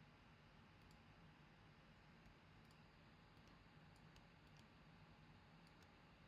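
Near silence: faint room tone with about a dozen faint, irregular clicks of a computer mouse.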